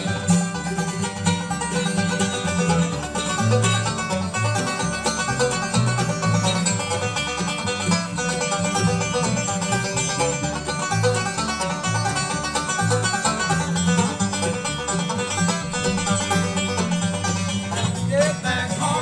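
Live bluegrass band playing an instrumental break, with banjo and guitar picking over a steady, bouncing bass line.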